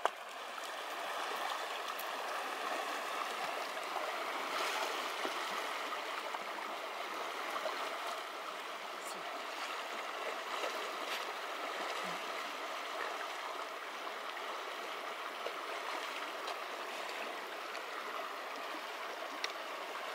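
Shallow, muddy stream running steadily over a sandy bed: a continuous rush of water.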